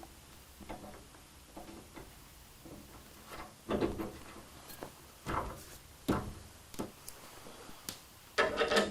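Workshop handling noises: a few soft knocks, then louder separate clunks from about three and a half seconds in, and a quick cluster of rattling clatter near the end, as tools and metal parts are moved and fitted.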